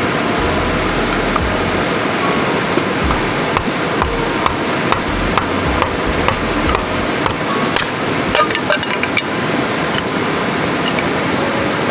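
Scattered knocks and clicks of firewood being handled while a campfire is prepared, thickest about two-thirds of the way through, over a steady rushing background noise.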